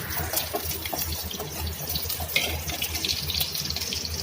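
Small onions and garlic cloves sizzling in a little oil in a pan, a steady frying hiss with fine crackles.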